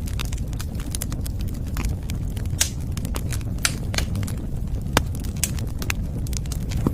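Wood fire crackling, with irregular sharp pops over a steady low rumble of burning.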